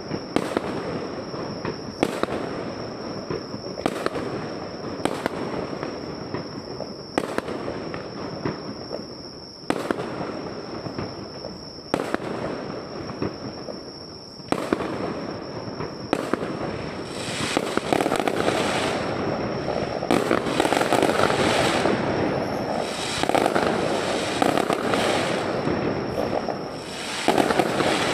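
Aerial fireworks shells bursting overhead, a sharp bang every second or two. About two-thirds of the way in they thicken into a louder, denser run of overlapping bangs and crackling.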